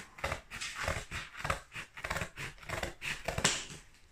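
Scissors cutting and scraping through packing tape and cardboard on a box: a run of short scraping strokes about three a second, the loudest one shortly before it quietens near the end.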